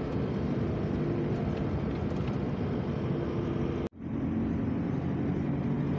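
Steady engine and road noise from a moving vehicle. About four seconds in the sound cuts out suddenly for an instant at an edit, then the same noise resumes.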